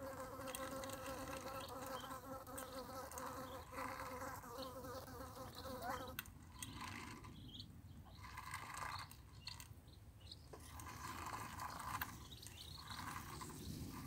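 A flying insect buzzing close by, a steady wavering hum that cuts off about six seconds in. Light clicks and rustles of ducklings pecking feed from a metal bowl go on through the rest.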